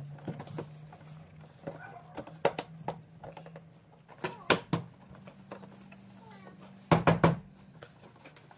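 Sharp clicks and taps of a plastic car bumper cover being pressed and seated against the fender, with a quick run of loud clicks about seven seconds in, over a steady low hum.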